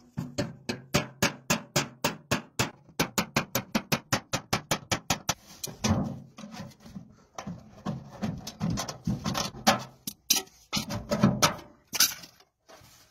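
Repeated sharp knocks, several a second, in a fast even run for about five seconds, then slower and irregular.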